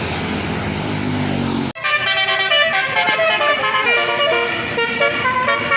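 A bus passing with engine and tyre noise, its engine note rising, then an abrupt cut to a bus's Basuri telolet musical horn. The horn plays a multi-note tune in steady stepped tones.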